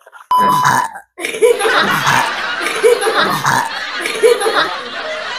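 Loud laughter: repeated 'ha-ha' pulses for about four seconds, preceded about half a second in by a short burst carrying a steady tone.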